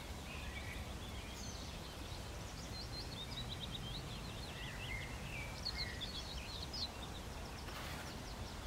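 Small birds singing in the background, a string of short chirps and quick trills, with a faster run of notes about three seconds in and a few brighter notes around six seconds. Under them runs a steady low rumble of outdoor ambient noise.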